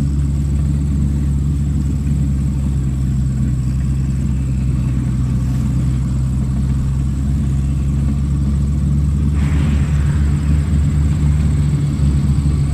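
JCB backhoe loader's diesel engine running steadily under hydraulic load as the backhoe arm digs and swings. About nine and a half seconds in the engine works a little harder, pulsing and louder, with a short burst of scraping noise.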